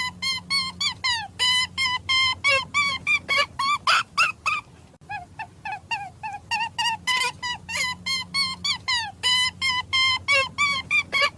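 A bird's rapid series of short pitched calls, several a second, rising and falling. The same stretch of calls repeats about every five seconds, as a loop.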